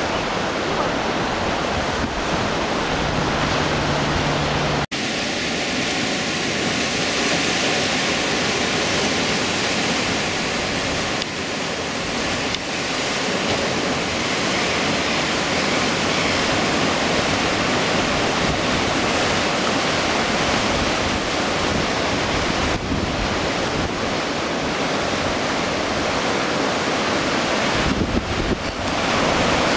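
Surf breaking and washing over a rocky shore in a steady rush, with wind gusting on the microphone. The sound breaks off abruptly for an instant about five seconds in.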